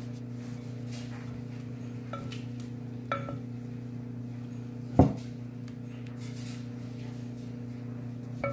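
Light clinks of a spatula and a glass mixing bowl against a metal bundt pan, with one sharp knock about five seconds in. A steady low electrical hum runs underneath.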